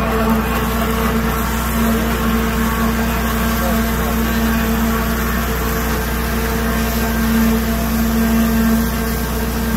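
Liberty Pumps ProVore grinder pump running steadily, shredding cloth and pumping the slurry out through its discharge pipe: a steady motor hum with a strong even tone.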